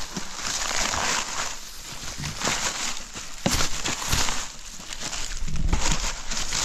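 Plastic bottles, wrappers and dry leaves rustling and crinkling in irregular swells as litter is gathered by hand into a plastic carrier bag, with a few sharp clicks.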